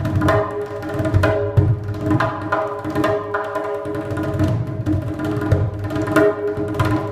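Sheepskin-headed darbuka played by hand in a quick, continuous rhythm, with deep low strokes among sharper, higher strikes, over a steady ringing tone.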